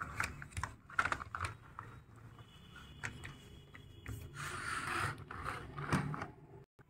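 Plastic toy vehicles clicking and scraping against each other and the plastic train track as they are handled, with a faint high whine for about two seconds in the middle.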